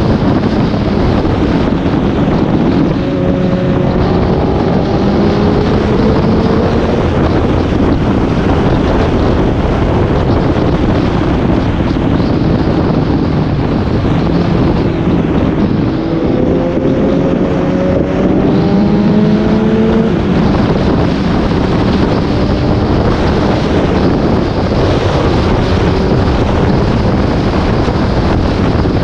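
Heavy wind rush over the microphone of a moving motorcycle, with its engine audible underneath. The engine pitch climbs steadily as it accelerates, once a few seconds in and again past the middle, then drops.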